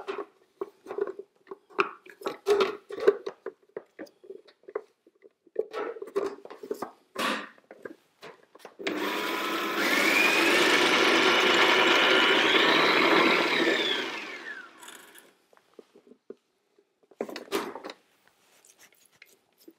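Kenwood stand mixer's food-processor attachment run for about five seconds, blending chickpeas into hummus: the motor whines up to speed, runs steadily, then winds down. Before it come light clicks and knocks of the lid and bowl being handled, and a few more clicks follow as the lid comes off.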